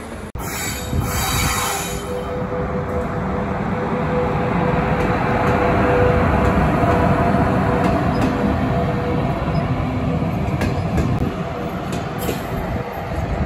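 A train running past on the rails: a loud, steady rumble that builds to its loudest about six seconds in and then eases, with a steady thin tone of wheel squeal through the middle.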